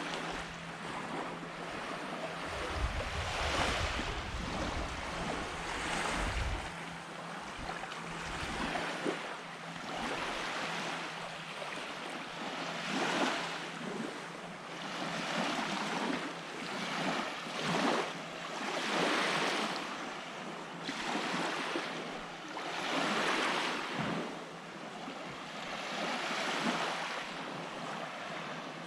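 Small waves washing up on a sandy beach, swelling and fading every couple of seconds. Wind buffets the microphone with a low rumble in the first several seconds.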